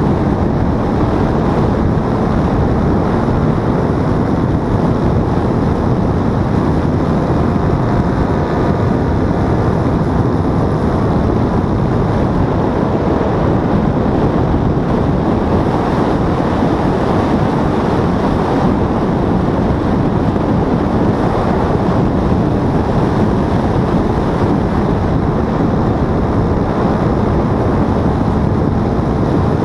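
Paramotor engine and propeller running steadily in flight, under heavy wind noise on the microphone. The level stays even, with no change in engine speed.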